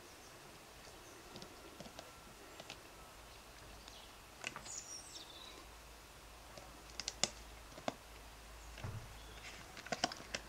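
Scattered sharp clicks and knocks of a small plastic container being nosed, pushed and carried about by a dog, loudest in a cluster about seven seconds in and again near the end. Short high bird chirps sound twice behind it.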